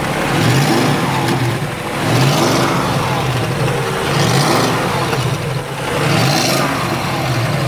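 BMW X5 engine revved and let fall back about every two seconds, four times over. The exhaust is suspected of leaking.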